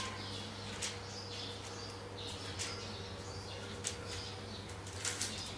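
Faint, scattered bird chirps, a short call every second or so, over a steady low hum.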